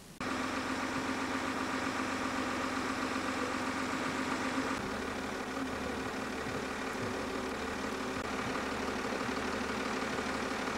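An engine running steadily at idle with an even hum. It cuts in abruptly just after the start and shifts slightly in tone about five seconds in.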